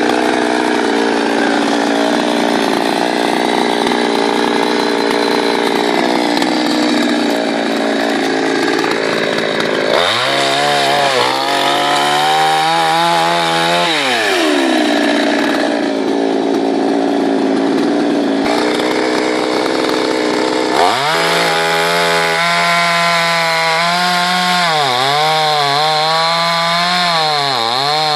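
Two-stroke chainsaw cutting through wood, running loud and steady under load. Twice it comes out of the cut and revs freely at a steady high pitch, its note dipping briefly a couple of times near the end as the chain bites into the wood again.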